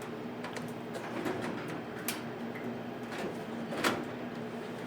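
Steady hum of running equipment with several sharp clicks and knocks of hardware being handled, the loudest about two and four seconds in.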